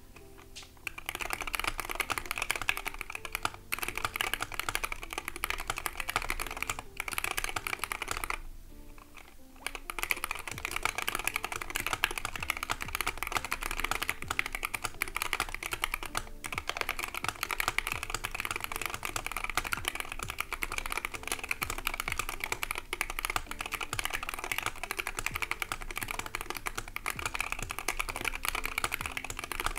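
Continuous fast typing on a Wooting 60HE keyboard in a Wooting Alumaze 60 aluminum case: a dense clatter of key presses and keystrokes. It breaks off for about a second roughly eight seconds in, then carries on.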